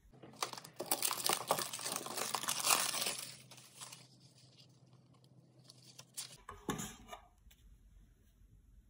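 Packaging crinkling and tearing for about three and a half seconds, then quiet, with a short rustle about seven seconds in as the cardboard eyeshadow palette box is opened.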